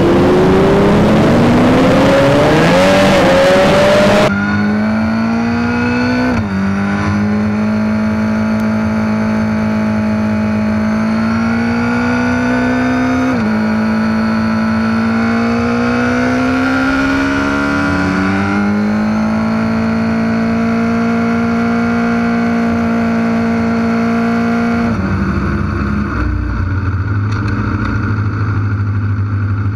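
Several sport motorcycles pull away with engines revving, then one sport bike's engine is heard from on board, rising slowly in pitch through each gear with three sharp drops at the upshifts. Near the end the revs fall to a low, steady running as the bike slows.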